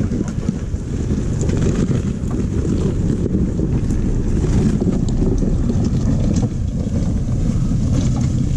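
Toyota 4Runner driving on a dirt off-road trail: a steady low engine and drivetrain rumble, with wind buffeting the microphone and a few light clicks.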